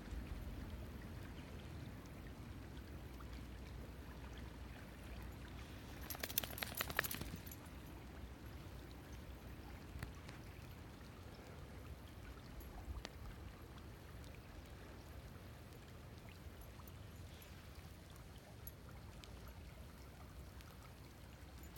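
Faint, steady rush of a river's current, with a low rumble underneath. About six seconds in there is a brief crackly rustle lasting a second or so.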